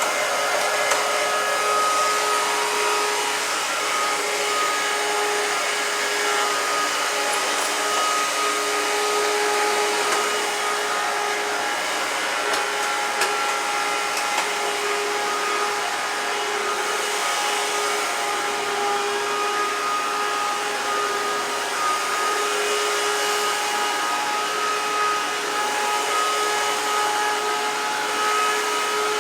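Dirt Devil Royal Platinum Force bagless upright vacuum cleaner running steadily, its motor giving a constant rushing air noise with a steady whine over it. The owner thinks the bearings sound a little funky.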